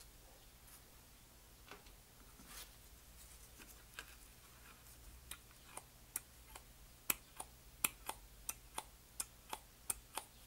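Small sharp clicks from hand work on a one-barrel carburetor, scattered at first, then a fairly even run of about three a second through the second half.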